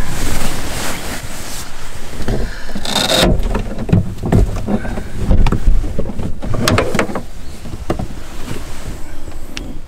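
Rustling of clothing and bedding and scattered knocks and bumps as someone shifts around inside a car, over a steady low rumble.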